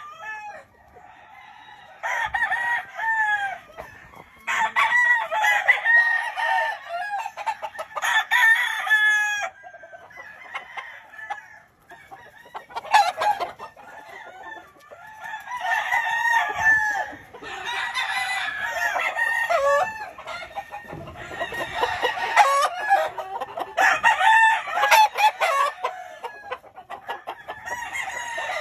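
Several gamefowl roosters crowing one after another, their calls overlapping, with short lulls between bouts.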